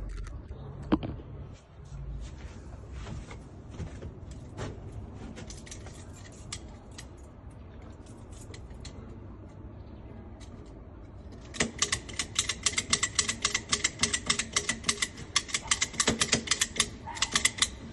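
Lock pick working the pin tumblers of a patio door lock: scattered faint metallic clicks, then a run of rapid, ringing metal clicks lasting several seconds near the end.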